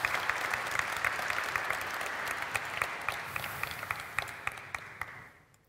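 Audience applauding: many hands clapping at once, steady for several seconds, then dying away near the end.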